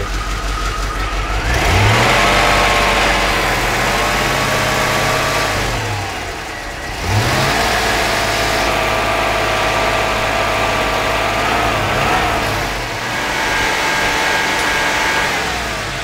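1992 Corvette V8 engine revved up from idle and held steady near 3000 rpm, let back down, then revved and held again before easing off near the end. The engine still has a misfire that the mechanic can hear.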